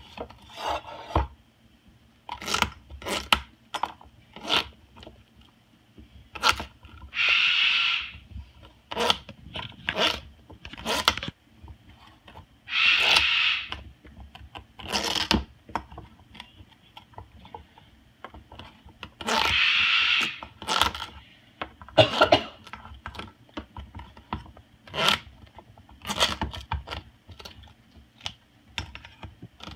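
Moluccan cockatoo's beak crunching and tearing chunks of butternut squash in a steel bowl: a run of sharp, irregular crunches, with three longer rasping tears of about a second each.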